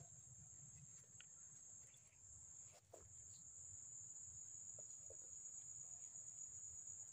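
Near silence with a faint, steady high-pitched insect drone, like crickets, and a few faint ticks.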